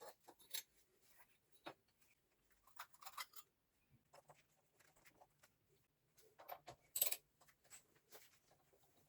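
Scattered light clicks and clinks of small metal objects being handled, with one sharper click about seven seconds in.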